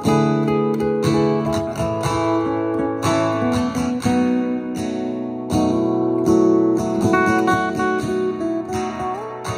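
Acoustic guitar music built up with a looper: freshly picked notes and strums over layered looped guitar parts, with several chords and notes ringing together at once.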